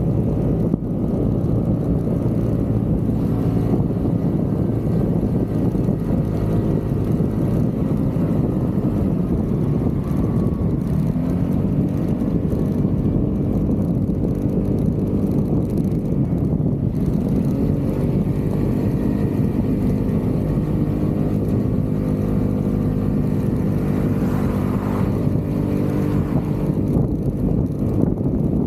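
Vespa GTV 300 scooter's single-cylinder four-stroke engine running under way, its pitch dropping as the throttle eases and climbing again, twice.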